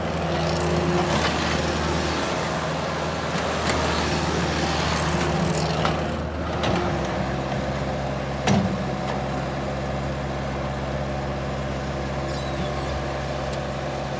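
The turbo diesel engine of a 2010 Bobcat S185 skid steer loader running steadily, its note shifting slightly about seven seconds in. A single sharp clack comes about eight and a half seconds in.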